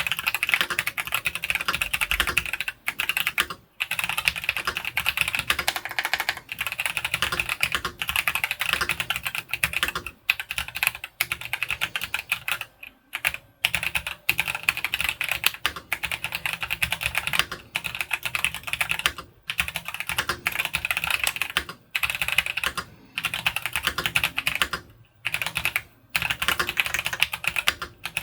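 Royal Kludge S98 96% wireless mechanical keyboard being typed on fast: a dense run of keystrokes with brief pauses every few seconds.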